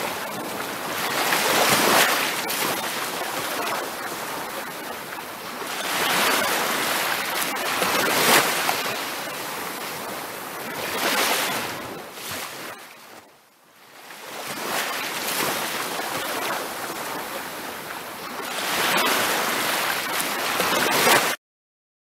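Ocean surf washing up on a beach, each wave swelling and fading every few seconds; it cuts off suddenly near the end.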